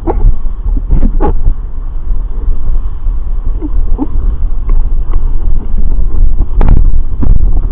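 Strong wind buffeting the action camera's microphone as a foil board rides over choppy water, with several short splashes and knocks of water against the board.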